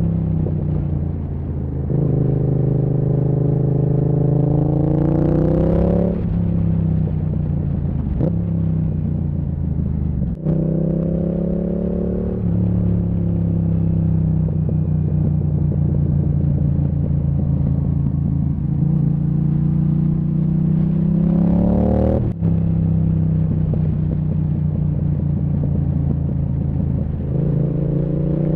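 Yamaha MT-07 parallel-twin engine on an aftermarket Zard exhaust, ridden and pulling up through the revs in gear several times, with short breaks at the gear changes. A few sharp cracks from the exhaust: misfires, which the owner blames on the Zard exhaust in 2nd to 4th gear.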